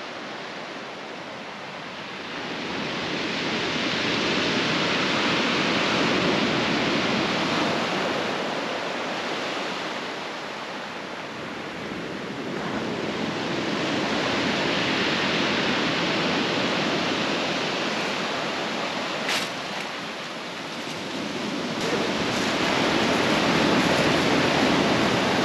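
Sea surf washing onto a rocky shore. It swells and eases in long surges several seconds apart. A brief sharp click comes about nineteen seconds in.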